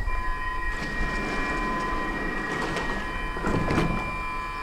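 Stockholm metro train standing at the platform, giving out a steady high electrical tone of several pitches held together for about five seconds, with a short cluster of clanks about three and a half seconds in.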